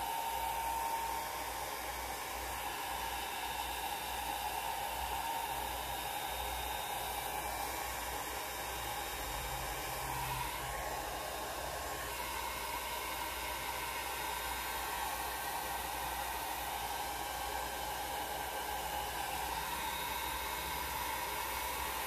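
Handheld hair dryer blowing steadily, a continuous airy rush whose tone shifts a little about ten seconds in as it is moved over the paper.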